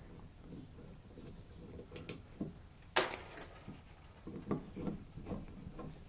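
Screwdriver backing out the mounting screws of a wall outlet: faint scraping and small clicks, with one sharp click about three seconds in.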